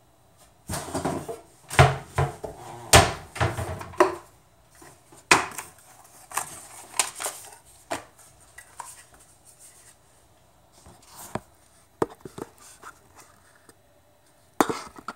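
Handling clatter close to the microphone: a quick run of sharp knocks and rattles for the first few seconds, then scattered single clicks and taps, with a louder cluster of knocks near the end.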